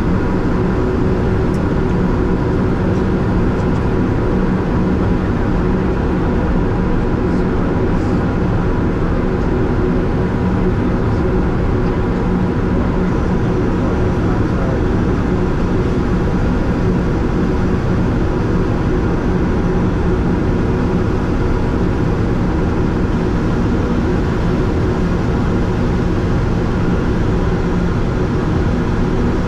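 Steady flight-deck noise of a Gulfstream G650 business jet descending on approach: a constant rush with a low hum and a few faint steady tones underneath.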